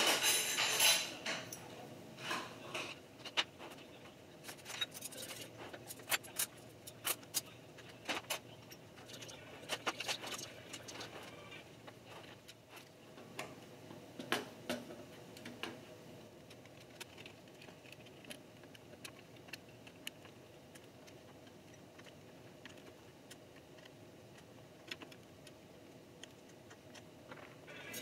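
Scattered small metal clicks and taps as a precision screwdriver works the screws on a computer CPU board and the board is handled on a wooden table. They are frequent through the first dozen seconds, cluster again around the middle, and thin out afterwards.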